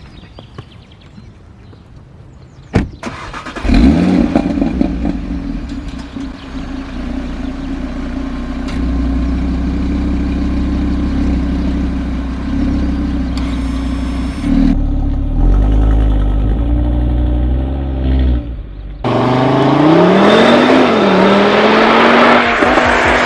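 Audi RS3 8V's turbocharged 2.5-litre five-cylinder, Stage 1 tuned with a downpipe and 200-cell catalytic converter on the stock exhaust, starting with a flare about four seconds in after a sharp click, then idling steadily. Around fifteen seconds in it is blipped a few times, and near the end it pulls hard, its pitch climbing, dropping and climbing again as with a gear change.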